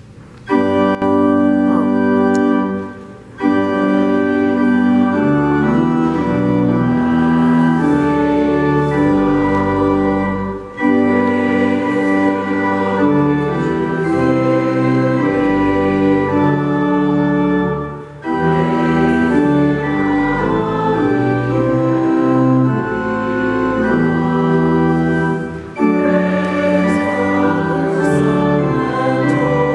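Organ playing sustained chords in long phrases, with a brief break between phrases about every seven seconds.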